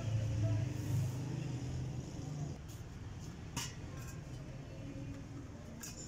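Steady low outdoor rumble, louder in the first two seconds, with two sharp clicks, one past the middle and one near the end.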